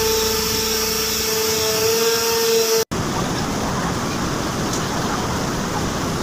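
A ship's deck machinery hum with a steady droning tone, its pitch rising slightly near the end, from the ferry's mooring winch. After a sudden break about three seconds in, a steady rush of wind and ship engine noise.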